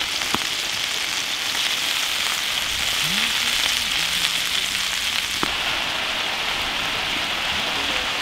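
Chicken wings sizzling in their sauce in a shallow iron pan over a wood fire: a steady, dense frying hiss with a few sharp pops.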